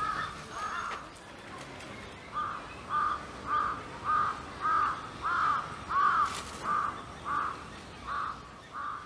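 Crow cawing: two short caws near the start, then after a brief pause a steady run of about a dozen arched caws, nearly two a second.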